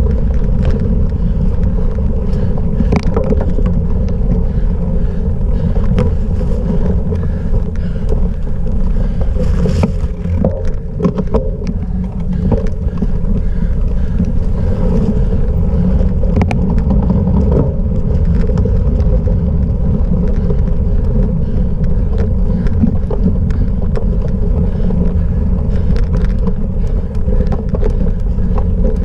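Steady wind rumble on the microphone of a camera riding on a cyclocross bike during a race over rough off-road ground, with frequent small knocks and rattles from the bike.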